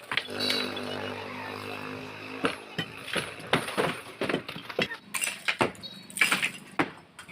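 Demolition work: a run of irregular sharp knocks and clinks of material being struck and broken, about two to three a second, starting a couple of seconds in. Before the knocks begin, a steady motor hum sounds briefly.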